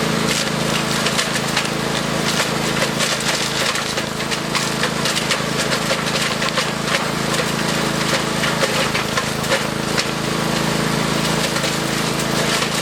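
Engine-driven wood chipper running steadily while branches are fed through, its drone overlaid by a constant, irregular crackle of wood being snapped and chipped.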